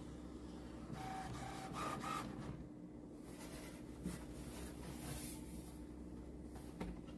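All-in-one inkjet printer starting up for a test print: faint whirring of its mechanism, a few short tones about a second in and a couple of sharp clicks.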